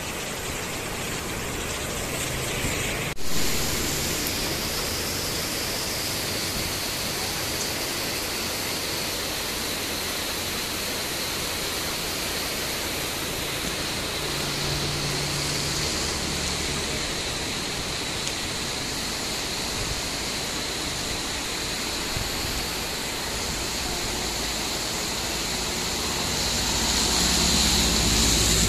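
Heavy rain and strong wind making a steady rushing noise, with one sharp knock about three seconds in. The rush swells near the end.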